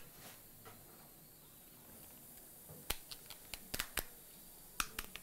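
Plastic sterile blister pack of a collagen membrane and bone-substitute kit being bent apart and peeled open by gloved hands: a string of sharp clicks and crackles, one at the start, most of them bunched about three to four seconds in, and two more near the end.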